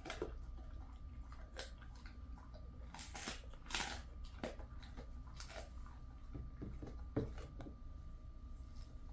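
A Jindo dog crunching a dried chicken-foot treat, with irregular sharp crunches about a second apart.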